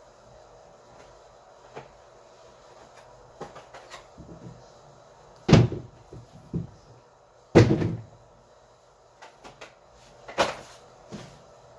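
Several sharp knocks and thuds of household things being handled. The two loudest come about five and a half and seven and a half seconds in, and a third near ten seconds, with quieter clicks between them.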